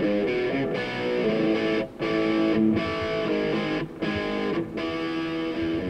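Intro music led by guitar, a melody of held notes broken by a few short gaps.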